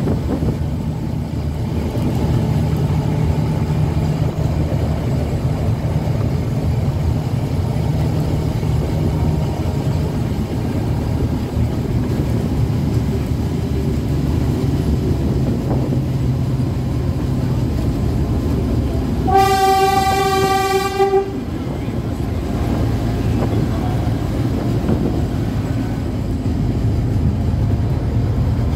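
Narrow-gauge forest railway train running with a steady low drone, and one horn blast of about two seconds, a single held note, about two-thirds of the way in.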